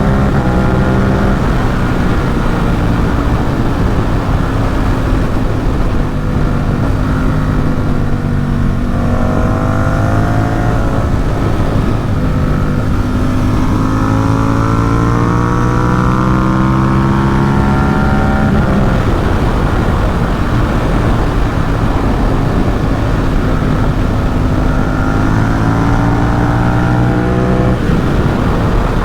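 Ducati Supersport 950 S's 937 cc L-twin, through a Competition Werkes exhaust, running hard under a riding motorcycle. Its pitch climbs as the revs build and drops back sharply several times, about a third of the way in, about two thirds in, and near the end, over a steady rush of wind noise.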